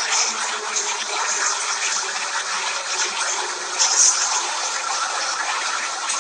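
Steady rushing din of a crowded underground railway platform with a train standing at it, with a brief louder hiss about four seconds in.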